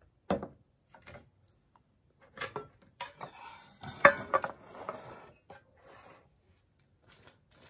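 Metal mess-kit bowl and pot being moved and set down on a wooden table. There is a sharp knock about a third of a second in, then clinks and scraping of metal, with the loudest ringing clink about four seconds in.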